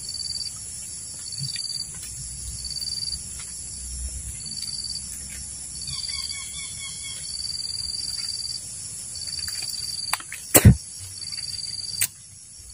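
Steady high drone of forest insects, with a short chirp repeating roughly once a second. A brief bird call comes about six seconds in, and a single sharp knock near the end.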